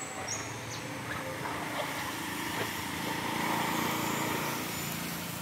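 A motor running steadily at a distance, over outdoor ambience, a little louder around the middle, with a short bird call near the start.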